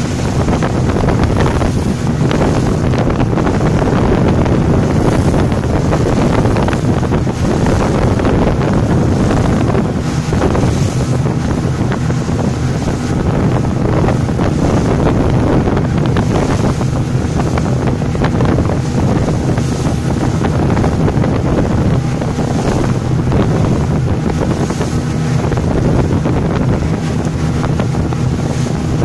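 Motorboat running steadily at speed, its engine hum mixed with water rushing along the hull and wind buffeting the microphone.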